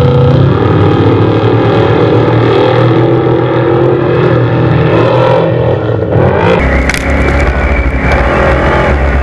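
Off-road race truck engine running loud and steady. About six and a half seconds in the sound shifts to a deeper, heavier note.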